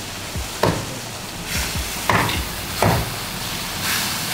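Food sizzling in a frying pan while a spatula stirs it, knocking sharply against the pan a few times.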